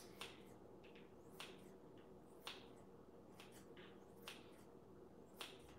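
Faint snips of kitchen scissors cutting raw bacon into small pieces, about six short clicks roughly a second apart.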